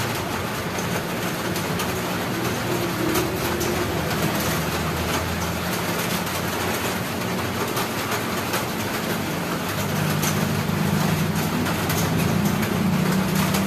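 Coconut milk and a lump of brown sugar heating in an aluminium wok on a gas stove, with a ladle stirring: a steady low rumble with scattered clicks and scrapes, the rumble growing stronger about ten seconds in. The sugar is melting into the milk as the mixture starts to thicken into coconut jam.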